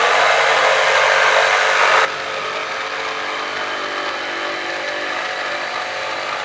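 Jigsaw cutting through a pine board, its blade running steadily. The sound is loudest for the first two seconds, then drops in level and carries on evenly.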